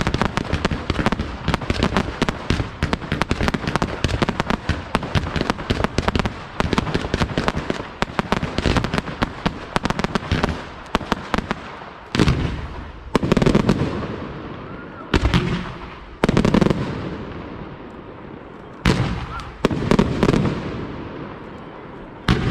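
Aerial fireworks display: a dense, rapid barrage of bangs and crackles, giving way about halfway through to separate heavy shell bursts a second or two apart, each fading out in a rumbling tail.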